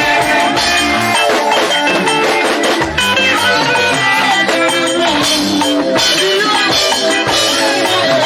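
Live gospel band music with guitar and drums, played loudly and without a break.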